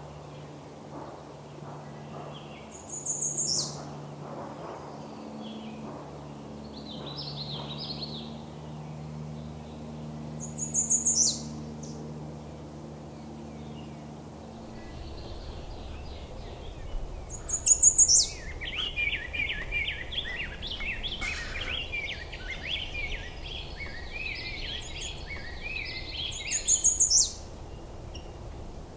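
Songbirds singing: a short, high, buzzy phrase that falls in pitch, repeated four times about every eight seconds, with a long, jumbled, warbling song in the second half. A low steady drone sits under the first half.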